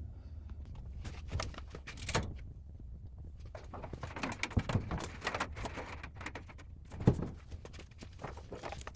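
Clicks, knocks and scraping as dryer parts are handled while a drive belt and pulley are fitted. There is a longer stretch of scraping midway and a single heavier knock a couple of seconds before the end.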